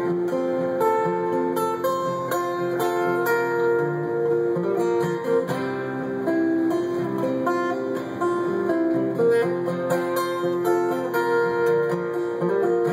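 Steel-string acoustic guitar playing chords on its own, with no singing, the notes changing every fraction of a second at an even level.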